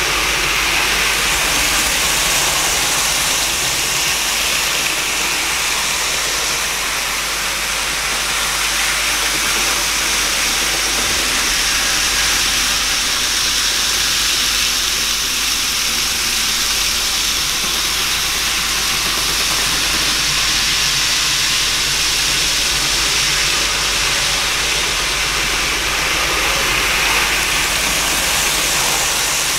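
N-gauge model trains running on the layout's track: a steady whirring hiss of small motors and wheels rolling on rail, swelling slightly near the end as a train draws close.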